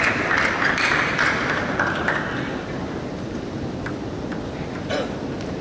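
Celluloid table tennis ball bouncing, a few sharp separate ticks in the second half, after a loud hall noise that fades out about halfway through.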